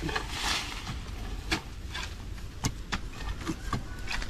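Hollow pipe being jabbed down into packed soil: a handful of short, sharp knocks and scrapes over a steady hiss.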